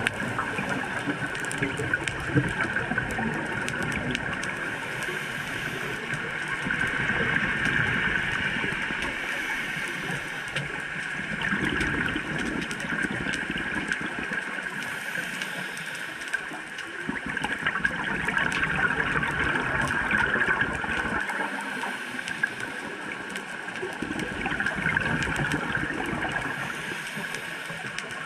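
Underwater sound through a dive camera's housing: a steady muffled hiss with a swell of gurgling bubbles about every five seconds, a scuba regulator venting bubbles on each exhale.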